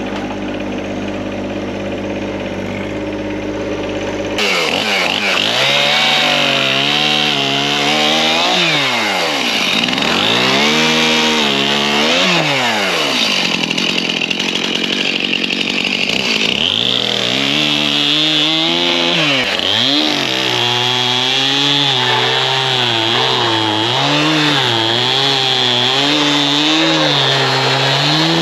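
An engine running steadily at idle, then, about four seconds in, a Stihl MS 271 two-stroke chainsaw bucking sawmill slabs. It revs up into each cut, runs steadily under load and drops back in pitch between cuts several times.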